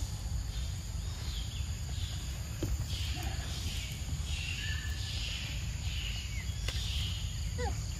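Outdoor forest ambience: a steady high insect-like hiss with short high chirps repeating about once a second, over a low rumble, with a couple of faint clicks near the end.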